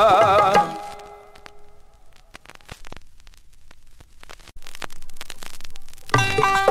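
Vinyl LP on a turntable: a held, wavering sung note ends the song about half a second in and its accompaniment dies away. The stylus then runs through the quiet groove between tracks, with surface crackle and scattered clicks. Near the end the next track's instrumental music starts with a beat.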